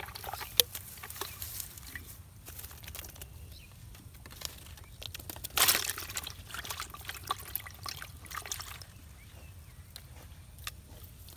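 Water splashing and sloshing in a bucket as a freshly caught climbing perch flaps and is handled over it, with one louder splash a little past halfway. Small clicks and rustles of handling come through between the splashes.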